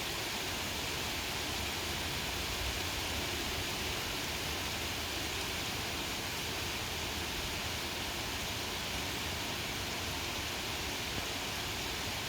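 Steady rain falling: an even hiss with no single drops or other events standing out.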